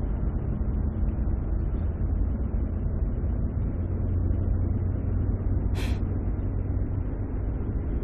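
Steady low rumble of a car's engine and road noise heard inside the cabin while driving, with a brief hiss about six seconds in.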